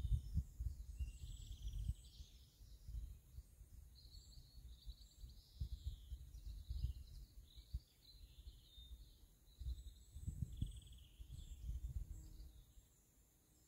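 Small birds singing with repeated short chirps and trills. Gusts of wind rumble on the microphone, loudest at the start and again about ten seconds in.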